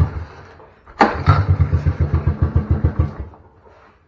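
1984 Honda ATC 200S single-cylinder engine firing in a short burst, then catching and running roughly for about two seconds before dying away: it only runs somewhat after the oil change.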